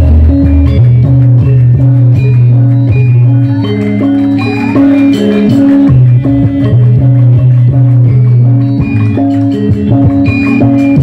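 Loud, amplified Javanese gamelan music accompanying a lengger dance: ringing struck metal notes in a repeating pattern over deep sustained tones.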